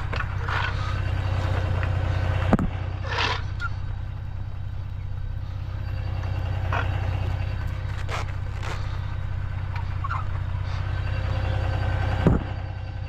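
Steady low hum of a vehicle engine running, with scattered short scrapes and two sharp knocks, one about two and a half seconds in and one near the end.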